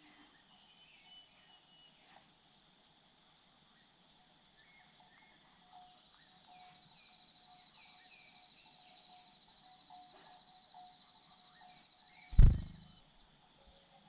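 Faint chirps of wild birds and insects, then a single loud, short, low thump about twelve seconds in: the adult bird's wings as it takes off from the ground nest beside the microphone.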